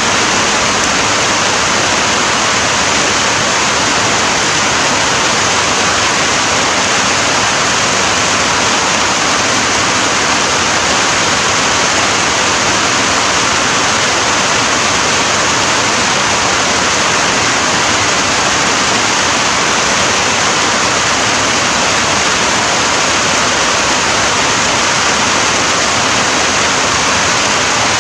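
Steady heavy rainfall: a dense, even hiss that does not change.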